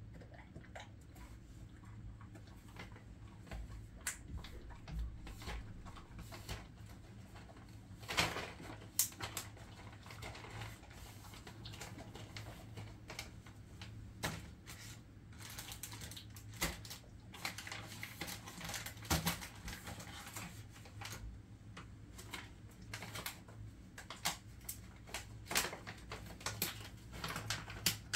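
Jindo mix dog chewing dry treats: irregular sharp crunches and clicks, coming in clusters.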